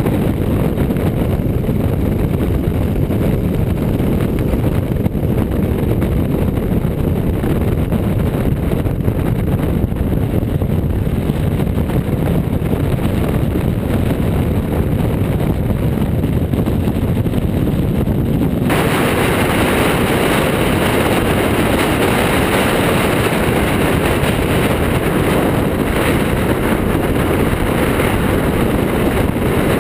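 Wind rushing over a motorcycle-mounted action camera at road speed, with engine and tyre noise beneath. About two-thirds of the way through, the noise turns suddenly brighter and hissier.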